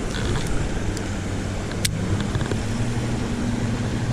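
Road traffic: a steady rush with the low hum of a car engine running through it. There is one sharp click about two seconds in.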